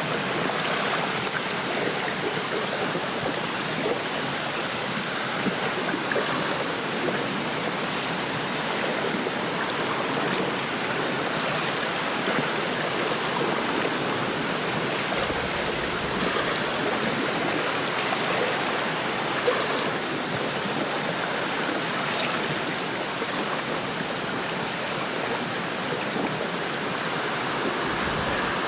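Wind rushing through a lakeside reed bed with small waves lapping at the shore, a steady even rush with no let-up.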